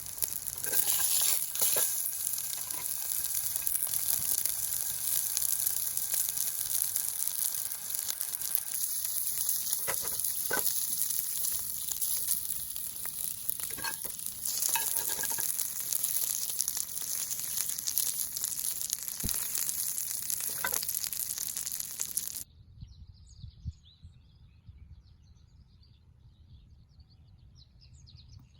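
A steady, high-pitched hiss with a few short clicks that cuts off abruptly about 22 seconds in. After it, a much quieter outdoor background with faint bird chirps.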